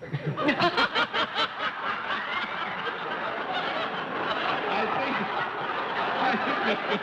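Laughter on a live studio set: a man laughing heartily in quick ha-ha pulses during the first second and a half, then steady general laughter from the room.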